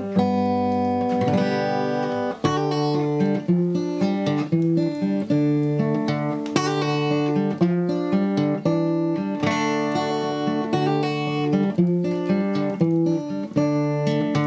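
Acoustic guitar music: a continuous run of plucked notes and chords.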